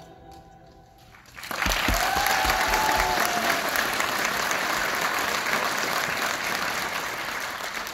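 Soft recorded string music fading at the end of a dance, then an audience breaking into applause about a second and a half in. A voice calls out briefly in the first seconds of the clapping, and the applause then holds steady, easing slightly near the end.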